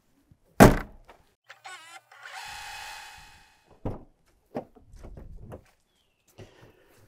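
A van hood slammed shut about half a second in, the loudest sound. It is followed by a short steady motor whir lasting about a second and a few lighter thuds and clunks.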